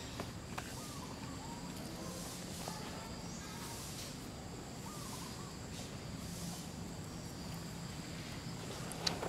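Outdoor background with a steady high whine and low hum, a few faint short chirps, and sharp clicks near the start and the end.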